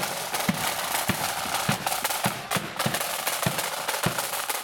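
Marching band drum corps: snare drums playing a dense street beat over a bass drum thumping steadily about every 0.6 seconds.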